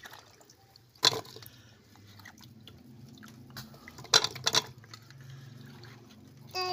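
Wet pieces of lotus stem dropped by hand from a bowl of water into an aluminium pressure cooker, landing with sharp clatters and wet slaps against the pot and ladle: once about a second in and three times close together around four seconds in. A low steady hum runs underneath.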